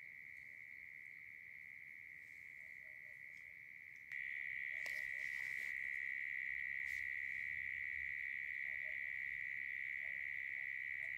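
Night insects calling in a steady, unbroken high-pitched chorus, which gets suddenly louder about four seconds in. A few faint clicks sound over it.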